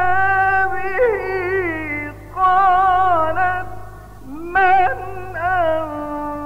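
A male Quran reciter chanting in the melodic mujawwad style, holding long ornamented notes that waver and glide in pitch, with short breaks for breath, over a steady low hum.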